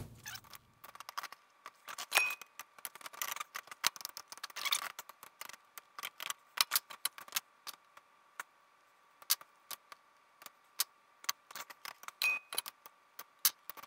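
Scattered clicks, taps and light knocks from a metal tube-radio chassis and a soldering iron being handled on a wooden workbench.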